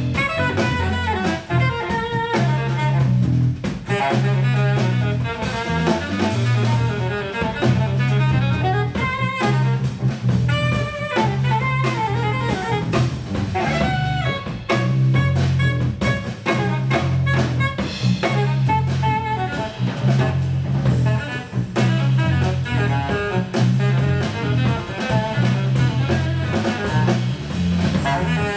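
Jazz band playing live: saxophone lines over drum kit, bass and electric guitar, with a repeating bass figure pulsing underneath.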